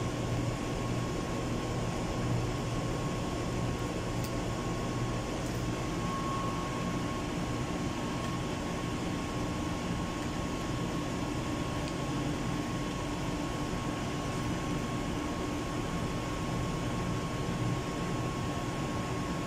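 Steady running noise of a room air conditioner: an even hiss over a low hum, with a constant faint high tone.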